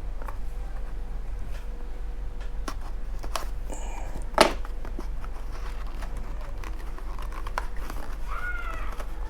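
Small hobby-paint jars being handled, giving scattered light clicks and taps with one sharper knock about four and a half seconds in, over a steady low hum. Near the end comes a short call that rises and falls in pitch.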